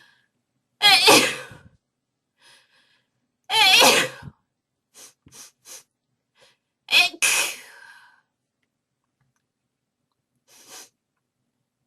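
A person sneezing three times, about three seconds apart, the last one a quick double sneeze. Faint short sounds come between them. The sneezes are induced, deliberately provoked.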